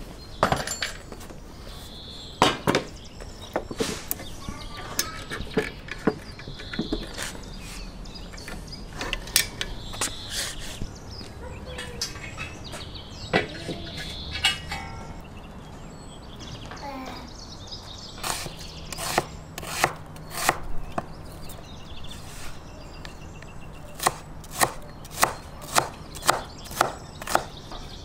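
Clanks and knocks of metal and wood as a portable gas cylinder, its hose and a ring burner are handled and a frying pan is set on the burner atop a wooden barrel. Near the end comes a run of evenly spaced sharp chops, about two a second, of a knife on a wooden cutting board.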